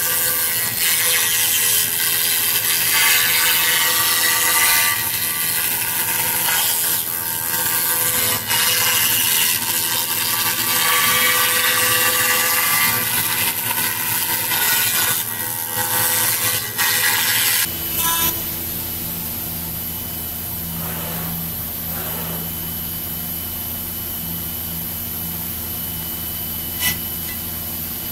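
A CNC milling machine's end mill cutting into a block of Japanese cedar, a rough, uneven grinding and chipping noise. About eighteen seconds in it changes abruptly to the spindle running steadily with a constant high whine and a quieter hum, with a single click near the end.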